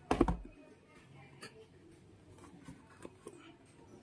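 A kitchen knife blade scraping and slitting along the edge of a small cardboard box to cut it open: faint, scratchy strokes with small clicks. It opens with a brief louder sound.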